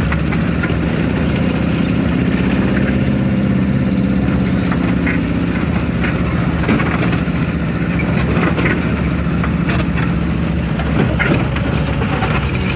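Diesel vehicle's engine running steadily, heard from inside the cabin, with road noise and scattered knocks and rattles from the body jolting over a rough dirt road.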